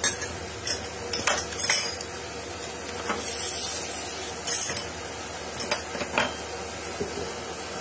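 Spoon scraping and scooping the flesh out of an apple mango half held in the hand: a handful of short, irregular scrapes and clicks, with eating sounds in between.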